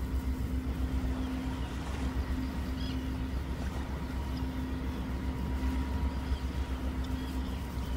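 Fishing boat's engine running steadily: a low, pulsing rumble with a faint steady hum above it.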